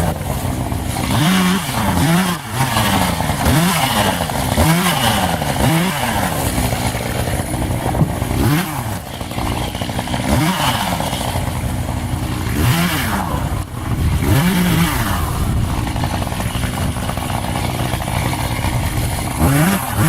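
Two-stroke Echo chainsaw revving up and dropping back again and again, its pitch rising and falling every second or two as it cuts firewood, over a steady engine drone.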